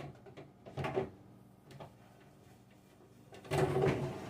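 A plastic refrigerator storage bin being handled: a few light knocks and clacks, then a longer sliding scrape about three and a half seconds in.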